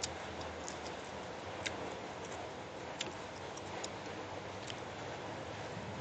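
Eating with sharp, irregular mouth clicks from chewing, about eight in six seconds, over a steady background hiss.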